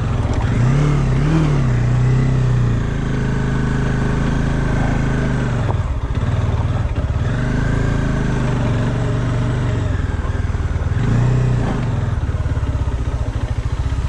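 Bajaj Dominar 400's single-cylinder engine pulling at low speed up a rough dirt track, its revs rising and falling several times under the throttle.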